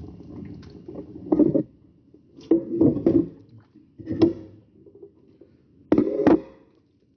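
Dull handling thumps and knocks as a raw whole chicken is turned and handled over a plate, coming in four clusters about a second apart, the last pair near the end the loudest.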